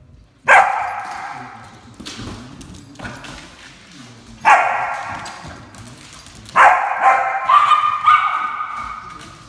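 A dog barking in play: a sharp bark about half a second in, another at about four and a half seconds, then a quick run of several barks from about six and a half to eight and a half seconds.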